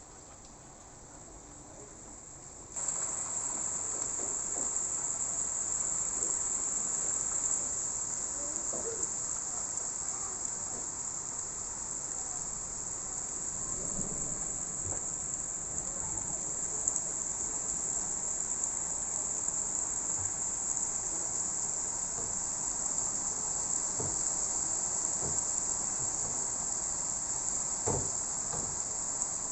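Steady high-pitched chirring of insects over a wash of heavy rain and wind noise. The whole sound jumps suddenly louder about three seconds in, with scattered light knocks after that.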